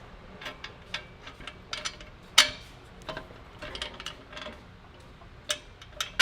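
Irregular metal clicks and clinks as exhaust flange bolts and hardware are fitted by hand on the new exhaust section, with one louder clank about two and a half seconds in.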